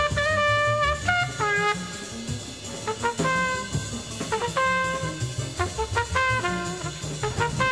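Background music: a jazzy tune with a brass melody of held notes over drums, which cuts off abruptly at the end.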